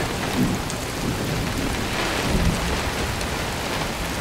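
Heavy squall rain pouring onto a sailing catamaran at anchor, a steady dense hiss with a low rumble underneath.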